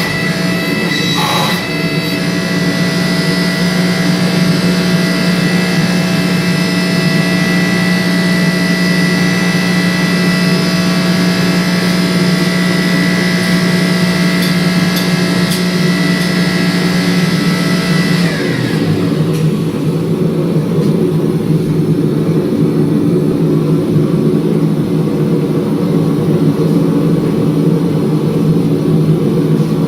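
Shop machinery running steadily with a whine of several steady tones; about eighteen seconds in the whine falls in pitch and fades as the machine winds down, leaving a steady low hum running.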